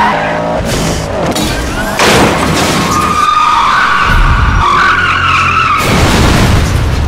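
Race-car sound effects: engines and tyres squealing through a long skid, with a sudden loud hit about two seconds in, over music.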